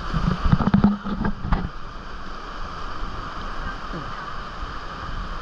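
Whitewater rapids rushing steadily around a raft, with a few loud knocks and thumps in the first second and a half.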